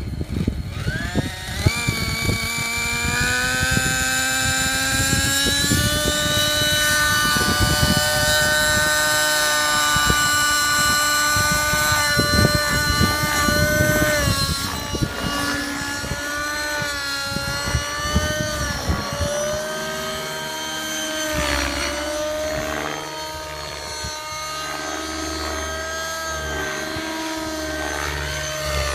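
Two-stroke glow (nitro) engine of a T-Rex 600 Nitro Pro DFC model helicopter, an O.S. 55 HZ Hyper, spooling up. Its high-pitched whine rises over the first two seconds, then holds, dipping and recovering in pitch as the helicopter flies and the engine takes load. Low buffeting of rotor wash or wind on the microphone runs through the first half.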